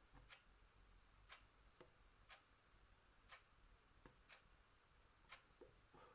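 Clock ticking faintly, once a second, with a few softer, duller clicks in between.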